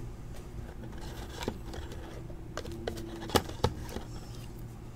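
A trading card in a soft plastic sleeve being handled and slid into a rigid plastic top loader: light scraping and rustling of plastic with a few sharp clicks, the two loudest about two-thirds of the way in, over a low steady hum.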